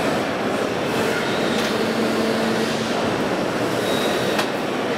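Hydraulic plastic injection moulding machine with a variable-displacement pump running, a steady pump hum holding for about two seconds as the mould cycles open, over a constant din of machinery; a sharp click near the end.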